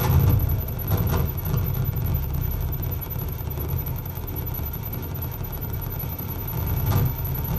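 Live electronic noise music from analog electronics: a loud low rumbling drone, with brief harsh noisy accents at the start, about a second in, and near the end.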